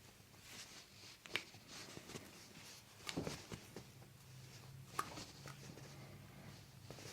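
Toe and ankle joints popping under a chiropractor's manipulation: three faint sharp cracks, roughly two seconds apart, over soft rustling of hands and skin.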